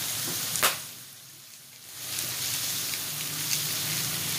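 Food sizzling on an electric hotpot grill, with a sharp click about half a second in. The sizzle drops away for about a second, then comes back.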